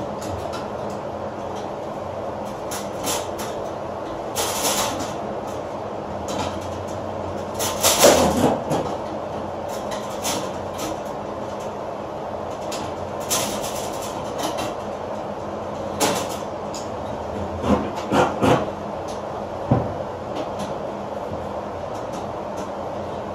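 Irregular metal clanks, knocks and scrapes of hand tools working a copper refrigerant line, the loudest about a third of the way in and a quick cluster near the end, over a steady mechanical hum.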